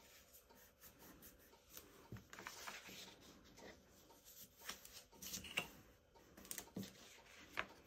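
Faint rustling and creasing of a cardstock lantern panel as it is folded along its score lines and pressed flat by hand, with a few brief, sharper crackles of the paper.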